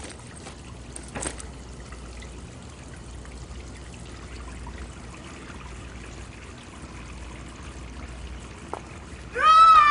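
Faint steady trickle of a tap running into a washroom sink, with a single click about a second in. Near the end a loud, high-pitched wavering tone starts suddenly and holds.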